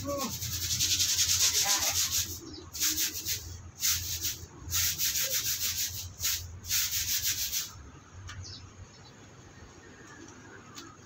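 Stiff brush scrubbing in quick, rapid strokes, in several bouts with short pauses between them, stopping about eight seconds in.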